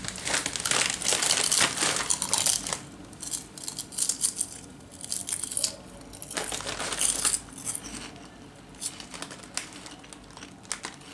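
Crunching and chewing a potato chip: dense crisp crackles for the first few seconds, then fainter, scattered crackles as the chewing goes on.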